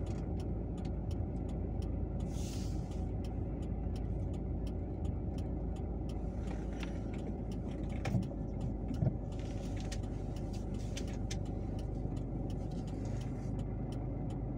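Car engine and cabin noise heard from inside a slowly manoeuvring car: a steady low rumble with faint, regular ticking throughout. There is a short hiss about two and a half seconds in and two soft knocks about eight and nine seconds in.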